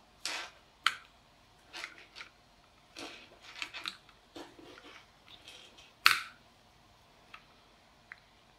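Small lumps of extruded nylon filament handled on a table and set down on a pocket digital scale: scattered light clicks and rustles, the sharpest about six seconds in, with a couple of faint ticks near the end.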